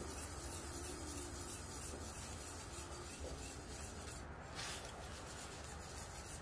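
Whisk stirring flour into a milk-and-butter white sauce in a pot, a steady scraping rub against the pot.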